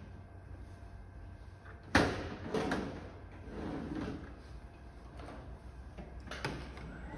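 Picking at a vertical carousel: a sharp plastic clack about two seconds in, a smaller knock just after, then rustling and a lighter click as small items are taken from plastic bins and put into a plastic crate, over a steady low machine hum.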